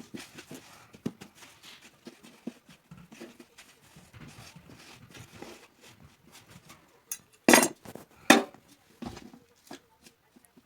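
Scattered light clicks and knocks of objects being handled, with two louder knocks less than a second apart near the end.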